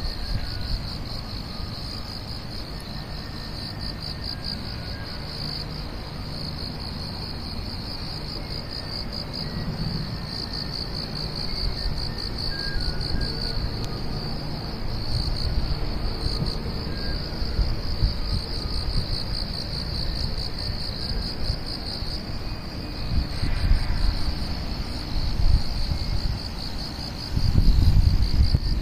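Insects trilling steadily in a high, finely pulsing chorus, with a low rumble underneath that swells near the end.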